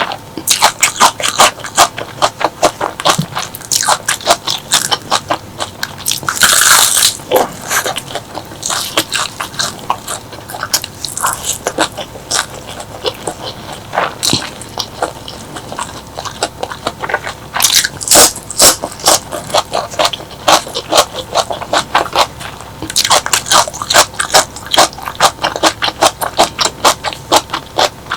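Close-miked chewing and crunching of crisp food: a fast, steady run of crunches with a few louder, longer bites about a third of the way in and again in the last third.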